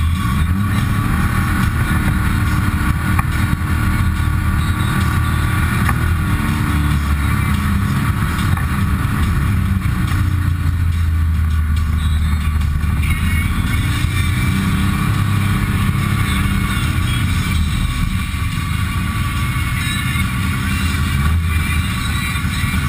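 Textron Wildcat XX side-by-side's three-cylinder engine heard from inside the cab at low trail speed, its pitch rising and falling with the throttle, with a steady whine from the drivetrain.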